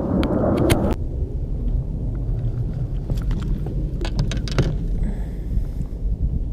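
Wind buffeting the microphone: a steady low rumble, heavier for the first second, with a few sharp clicks scattered through it.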